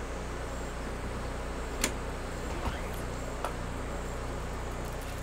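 Steady low hum with a faint hiss, broken by a few brief sharp clicks, the clearest a little under two seconds in.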